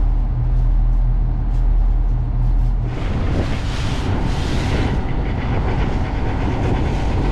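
A pilot boat running at speed, its engines giving a steady low drone; about three seconds in, the rush of wake water and spray along the hull comes in over it.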